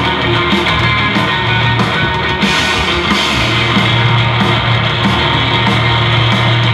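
Live rock band playing loudly: drums, bass and guitars in a steady, unbroken passage.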